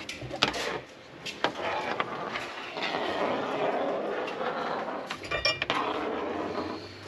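A few light metallic clinks and knocks, with a short ringing clink about five seconds in, over steady background noise.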